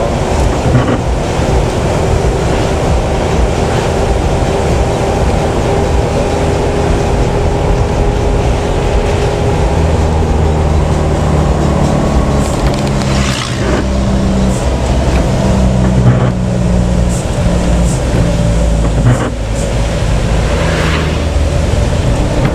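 Bus engine and tyre noise heard from inside the cabin of a moving bus on a rain-wet road, the engine note stepping up and down in pitch as it drives, with a few sharp knocks and rattles.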